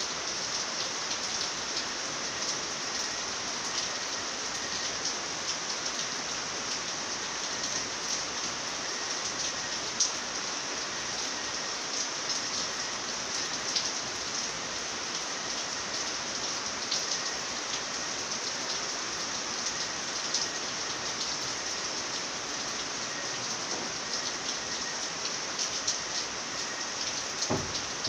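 Steady rainfall: a dense, even hiss with frequent individual drops ticking sharply now and then.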